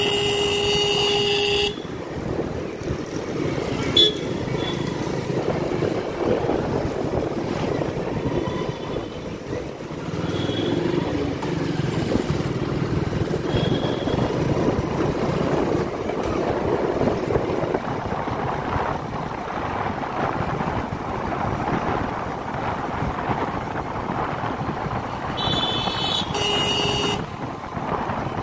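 Motorcycle riding along a busy city street: steady engine and road noise with wind on the microphone. A vehicle horn sounds loudly for under two seconds at the start, and horns sound again, twice in quick succession, near the end.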